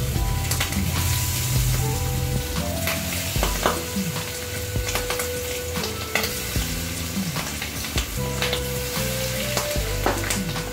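Red-marinated chicken pieces for Chicken 65 put into hot oil and sizzling as they fry, with sharp crackles. Background music with a melody and bass plays along.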